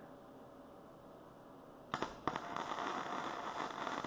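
An electric arc welder strikes an arc on steel about two seconds in, then runs with a steady crackling sizzle broken by sharp pops.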